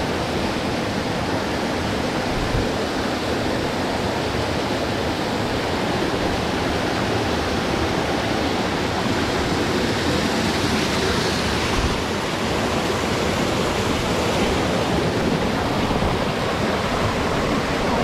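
Steady, unbroken rush of falling water from a waterfall in full monsoon flow.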